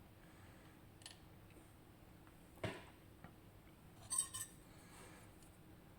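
Small metal lock parts clicking and clinking as the sidebar is taken out of a disassembled RUKO Garant lock: a few faint clicks, then a brief ringing metallic clink about four seconds in.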